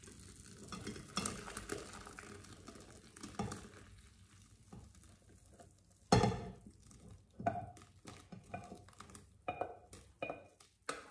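Curds and whey pouring from a stainless steel pot into a mesh strainer, splashing softly for the first few seconds. Then a wooden spoon scrapes and knocks against the pot as it pushes out the last curds, with the loudest knock about six seconds in.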